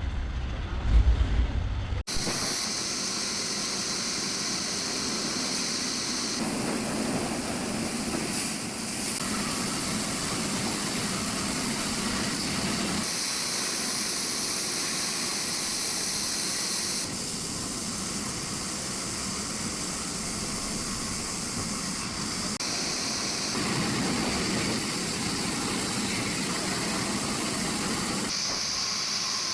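Sawmill saw cutting a coconut log: a steady hissing, whirring noise. A low rumble in the first couple of seconds cuts off abruptly, and the hiss then changes character sharply every few seconds.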